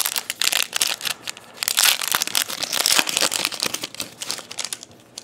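Crinkling and tearing of a trading-card pack wrapper being pulled open by hand: a dense run of sharp crackles that dies down near the end.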